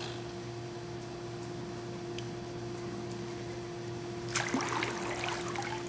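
Water splashing and trickling around a kayak in a pool for about a second and a half, starting about four seconds in, over a steady low hum.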